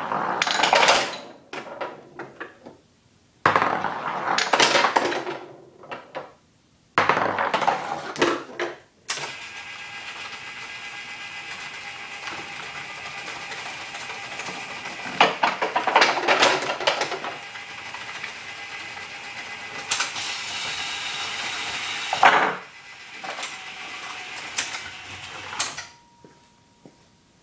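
Three times in the first nine seconds, a ball rolls down the wooden lane of a one-third-scale candlepin bowling alley and clatters into the pins. Then the alley's pinsetter machine runs with a steady motor hum and several bursts of clattering as it clears and resets the pins. It stops a second or so before the end.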